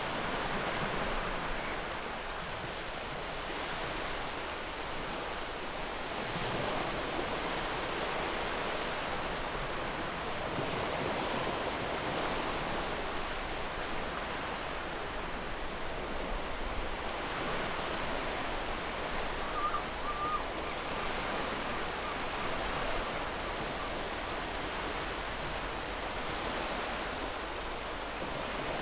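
Ocean surf washing in steady waves, a constant rush that swells and eases slowly. A short wavering high chirp cuts through about two-thirds of the way in.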